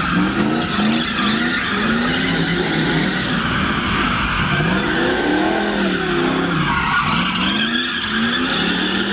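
Drift cars sliding, their engines revving up and falling back several times while the tyres squeal continuously.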